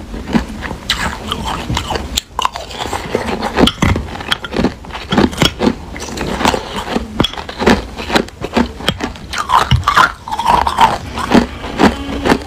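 Crushed ice being chewed close to the microphone: a rapid, irregular run of crisp crunches.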